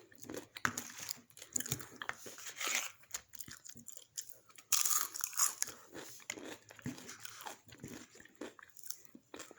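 Nachos being bitten and chewed, the tortilla chips crunching in irregular bursts, loudest about five seconds in.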